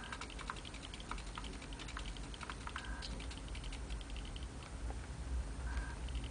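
Quick run of light clicks with a few short high whines: a MiniEric robot's servo being stepped to a new position by repeated remote-control button presses.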